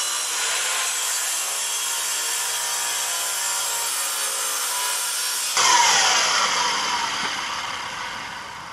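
Sliding compound miter saw cutting through an intake manifold part with a steady grinding rasp. A bit past halfway the blade comes free and the motor winds down, its whine falling in pitch and fading.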